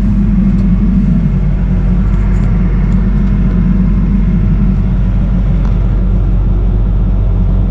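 Excavator's diesel engine running steadily, a loud, even low rumble heard from inside the cab.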